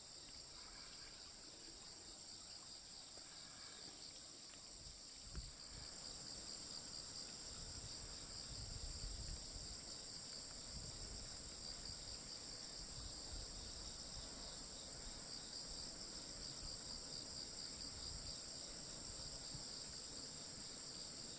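A chorus of insects making a steady, high-pitched trill that pulses slightly and does not let up. From about five seconds in, a low, uneven rumble sits beneath it, after a single click.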